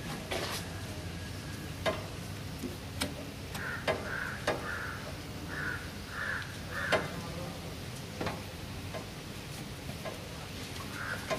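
Scattered sharp clicks and taps as a rubber fuel hose and its metal fittings are handled and pushed on. In the background, crows caw in two runs of short calls, several in a row.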